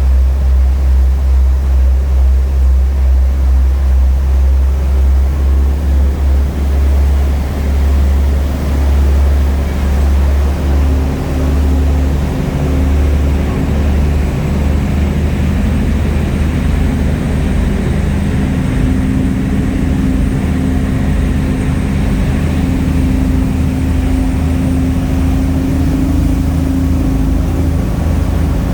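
Ferry's engine running, with a heavy low rumble that pulses about twice a second at first and then evens out. The engine's hum rises a little in pitch about halfway through as the boat picks up speed.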